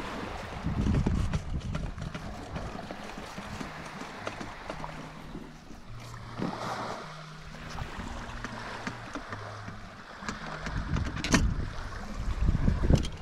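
Wind gusting on the microphone over splashing, lapping water, with a sharp knock about eleven seconds in.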